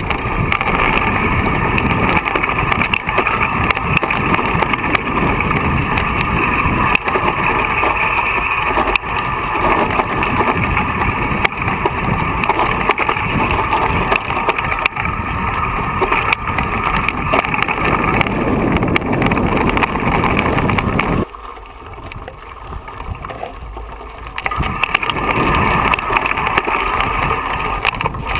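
Mountain bike riding noise on a rocky downhill trail, picked up by a camera carried on the bike or rider: a steady rush with constant rattling and knocking as the tyres and frame go over stones. The noise drops sharply about two-thirds of the way through for a few seconds, then picks up again.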